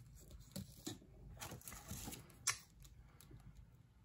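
Faint rustling of the plastic wrap and paper of a pack of bottle rockets as a single rocket is taken out, with a few light taps and clicks, the sharpest about two and a half seconds in.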